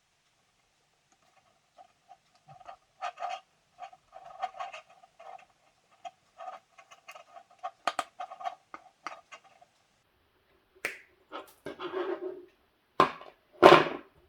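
Scattered small clicks and rattles of plastic plug parts and wire being handled and fitted together while a mains plug is assembled, with a few louder knocks near the end.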